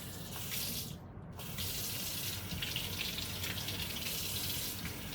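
Water running from a tap during a dog's bath, with a steady splashing hiss that cuts off for a moment about a second in, then runs again.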